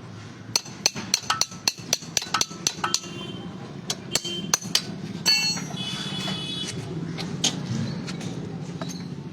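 A hammer tapping on metal in quick, sharp strokes, about a dozen in two and a half seconds, then a few more strokes and the ringing clink of loose metal parts, over a steady low hum.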